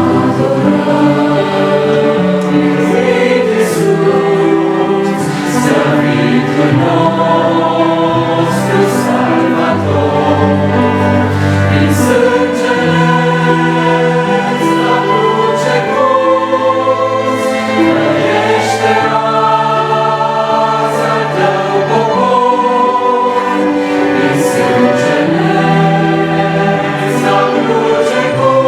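A choir singing Christian worship music in sustained chords, the harmony shifting every couple of seconds.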